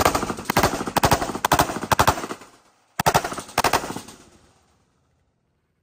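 Handgun shots fired in quick succession: a rapid string of shots, then after a short pause two more shots about half a second apart.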